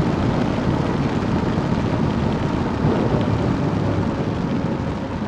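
Steady wind rush and wet-road noise of a Suzuki SV650S motorcycle ridden at speed in the rain, with its V-twin engine running underneath, heard from a rider-mounted camera with wind on the microphone.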